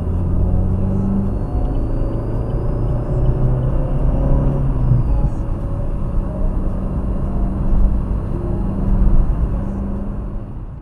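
Car engine and road noise heard from inside the cabin while driving, with the engine's low hum shifting in pitch a few times.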